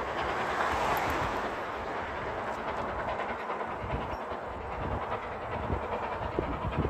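A train running on the line, a steady rumble of wheels on rail, slightly louder about a second in and easing a little as it draws away.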